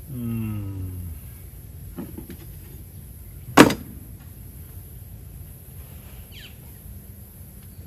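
Hand tools and tractor parts being handled during a repair. A softer click comes about two seconds in, then a single sharp knock at about three and a half seconds, the loudest sound. A short, low, falling moan opens the stretch, and a bird chirps faintly later on.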